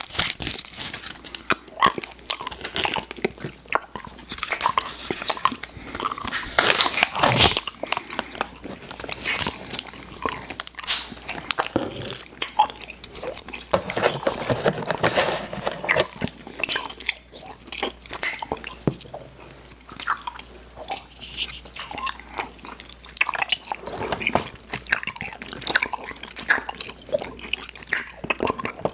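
Close-miked biting and chewing of candy, with wet mouth clicks and crunching continuing throughout.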